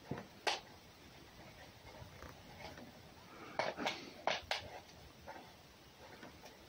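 A few short, sharp clicks: one about half a second in, then four in quick succession around the four-second mark.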